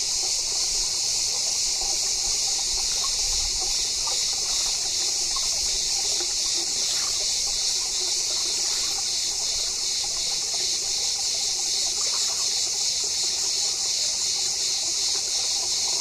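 Shallow rocky stream trickling steadily over stones.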